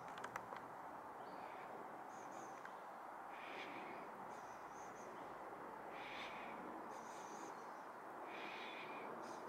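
Faint, short bird calls recurring every second or two over a steady background hiss, with a few sharp clicks just after the start.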